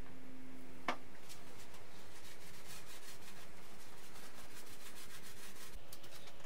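Small foam roller rubbing back and forth over resin-wetted carbon fibre cloth, a quick run of short rubbing strokes, after a single click about a second in.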